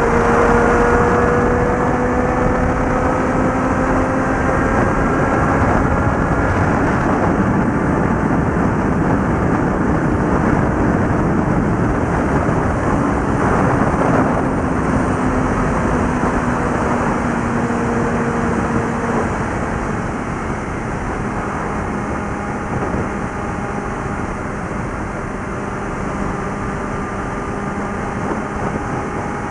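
Suzuki GSX650F inline-four motorcycle engine and exhaust running at highway speed, with heavy wind rushing over the microphone. The engine note climbs gradually over the first several seconds and runs a little quieter from about twenty seconds in.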